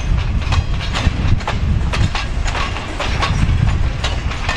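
Freight train cars rolling past close by: a steady low rumble with steel wheels clicking irregularly over the track.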